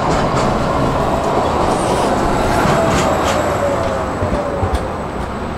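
Electric low-floor tram pulling into a stop close by. A steady rumble of wheels on rail with a few sharp clicks, and a motor whine that falls in pitch as the tram slows.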